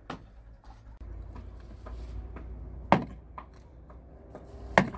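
Three sharp, short knocks, the loudest about three seconds in, over a low steady rumble.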